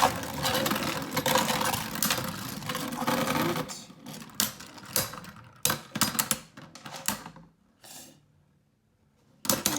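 Wonder Valtryek V4 and Z Achilles A4 Beyblade Burst tops spinning and clashing in a plastic Beystadium: a dense, rapid rattle for about three and a half seconds, then a few separate clacks as they slow and stop, and one sharp clack near the end.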